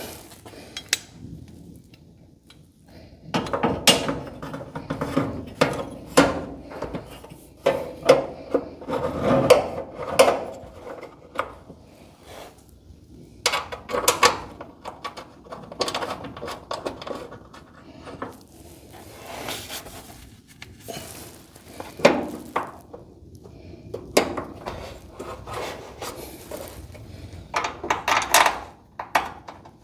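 Hands working garage-door hinge hardware: irregular clicks, knocks and rubbing scrapes of metal parts being handled and fitted.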